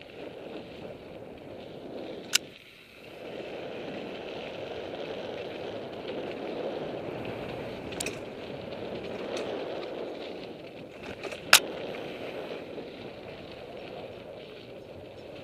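Mountain bike ridden along a dirt singletrack: a steady rush of knobby tyres rolling on dirt, with a few sharp knocks from the bike over the trail, the loudest about eleven seconds in.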